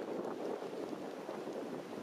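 Steady rushing noise of wind and surf at the shoreline, with no distinct calls or knocks.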